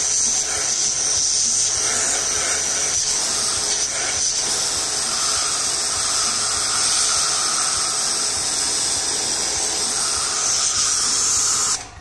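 Starq W3 1800W electric pressure washer spraying, its narrow jet of water hissing steadily against a brick. It cuts off suddenly near the end when the trigger is released.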